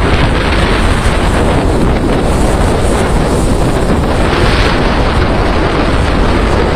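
Storm wind buffeting the microphone at sea, a loud steady rush mixed with the sound of waves, swelling briefly about two-thirds of the way through.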